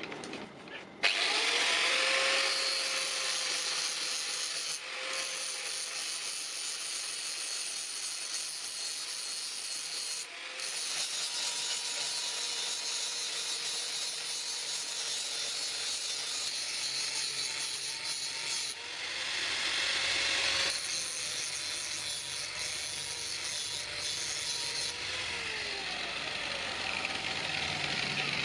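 Electric grinder working on iron rod: a steady high grinding hiss that starts about a second in, with the motor's whine dipping and recovering in pitch and two brief let-ups.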